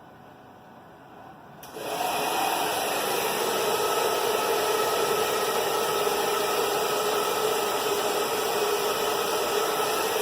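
Hair dryer switched on about two seconds in, then running steadily: a loud rushing blow with a few steady whining tones through it.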